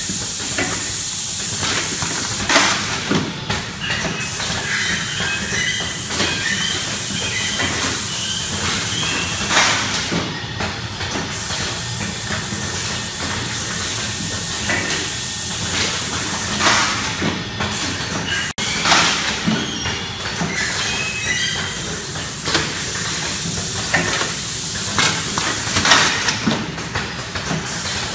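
Pneumatic automatic bag-filling machine running: a steady hiss of compressed air, with a sharp air blast from its cylinders every several seconds.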